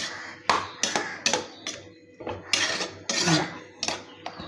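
A ladle stirring a thick mix of chopped banana flower and cooked lentils in a metal pot, knocking and scraping against the pot about twice a second.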